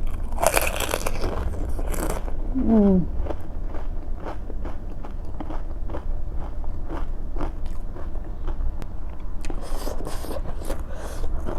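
Crisp panipuri puris bitten and chewed close to the microphone: a dense crunch in the first two seconds, then many small crunching clicks of chewing, and another burst of crunching near the end.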